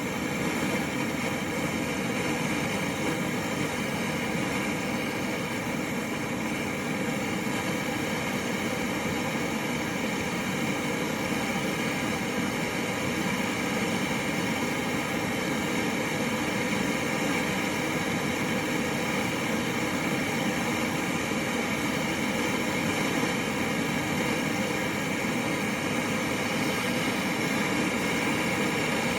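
Hand-held MAP gas torch burning with a steady roar, heating the end of a flexshaft drain cable toward red heat for silver soldering.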